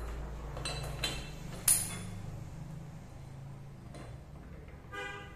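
Steel parts and tools clinking and knocking against a steel lathe fixture as they are handled, with one sharp ringing clink about a second and a half in and a brief pitched ring near the end.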